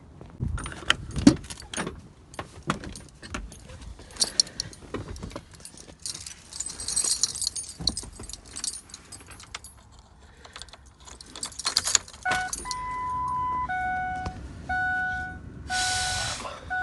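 Keys jangling and handling clicks and rattles while getting into a Toyota SUV. From about twelve seconds in, a dashboard electronic warning chime sounds, repeating in alternating high and low tones.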